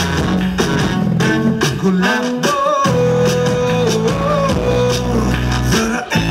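Loud dance music with a steady beat and a long held, wavering note in the middle; the music dips out briefly near the end.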